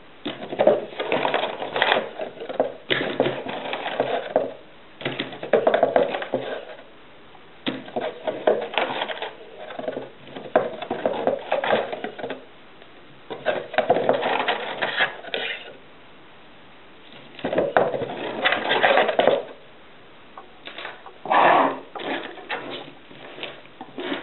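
Rustling and clicking as the alarm kit's packaging and parts are handled, in bursts of one to three seconds with short pauses between them.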